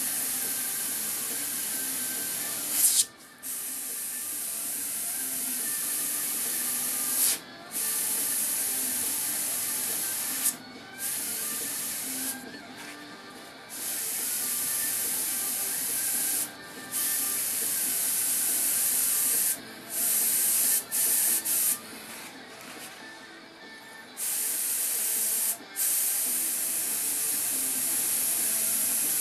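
Airbrush spraying paint in a steady hiss, cut off and restarted about a dozen times as the trigger is released and pressed again.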